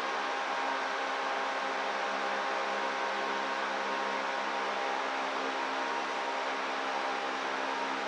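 Large Master portable axial fan running on its second speed, heard from far down a big hall: a steady whir with a hum of several steady tones.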